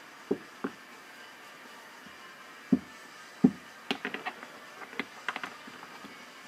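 A few dull knocks, then a quick run of light metallic clinks and taps as the aluminium brake caliper and air tool are handled on the bench while the stuck pistons are being worked loose.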